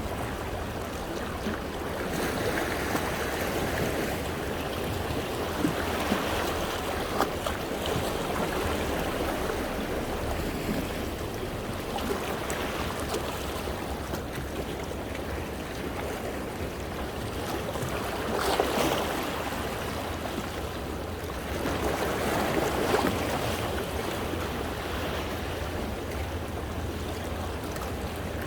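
Small sea waves washing over and around shoreline rocks, water sloshing and splashing among them, with a few surges swelling louder and breaking, the biggest about two-thirds of the way through.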